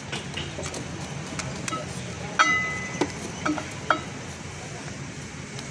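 Clinks and taps of a lead-acid battery plate stack being squared up by hand, plates and lugs knocking together: one sharp clink with a brief ring about two and a half seconds in, then a few lighter clicks.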